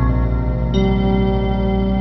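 Background music of held, sustained chords over a low pulsing bass, moving to a new chord just under a second in.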